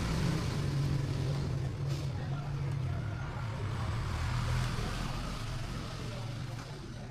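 An engine running steadily with a low, even hum, slowly fading away over the last couple of seconds.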